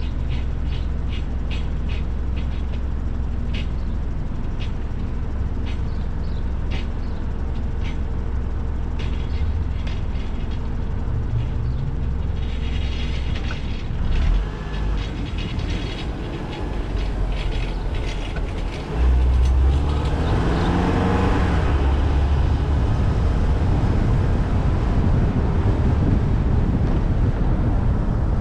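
City street traffic: a steady rumble of vehicles, with scattered short clicks through the first half and a louder stretch from about two-thirds of the way in.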